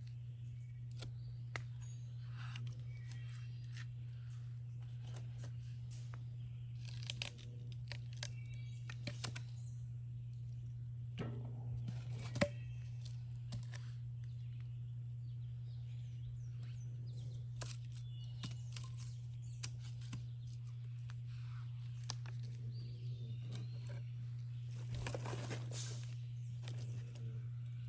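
Wood campfire crackling, with scattered sharp pops and clicks and a few short rustling stretches, over a steady low hum.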